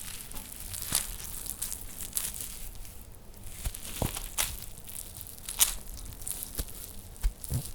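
Horror sound effect of body parts being dragged: a low rustling drag with irregular tearing and crumpling crackles and sharp snaps, the loudest a little past the middle and near the end.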